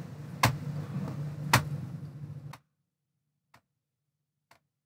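Clock ticking, about one tick a second, over a low hum. The hum cuts out about two and a half seconds in, and the ticks that follow are fainter.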